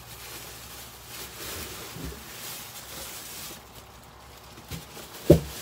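Groceries being handled: a plastic bag of vegetables rustling for the first few seconds, then a few light knocks and one sharp knock near the end as something is set down.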